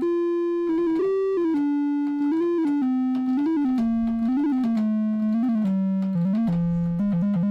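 Octave-Plateau Kitten II analogue monophonic synthesizer, its single oscillator playing a one-note-at-a-time melody that steps up and down, each note held at an even level, with quick upward flicks in pitch on a few notes.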